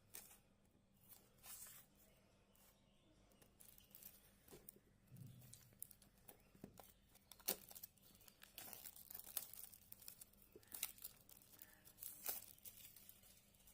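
Faint rustling, crinkling and scattered clicks of a smartphone's packaging being handled and opened by hand, the sharpest click about halfway through.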